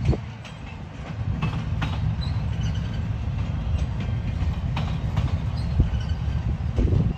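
Freight train cars rolling past: a steady low rumble with scattered clicks and clunks of the wheels over the rail joints.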